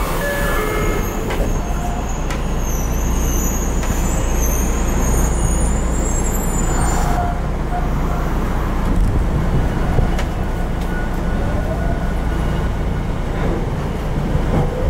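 Tokyo Metro 02 series subway car with Toshiba IGBT-VVVF inverter running, heard from inside the car: a steady low rumble of the running train. A high whine stops abruptly about seven seconds in, and rising tones begin near the end.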